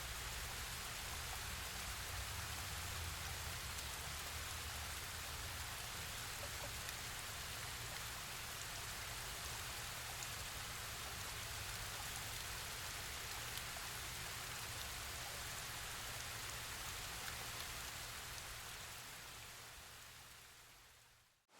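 Steady rush of a waterfall, an even hiss of falling water with a low rumble under it, fading out over the last few seconds.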